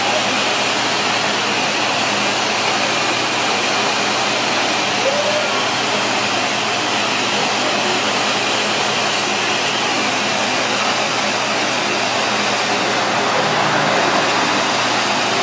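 Steady rush of air from the shower-head nozzle of a Build-a-Bear bath station, blowing over a plush toy's fur.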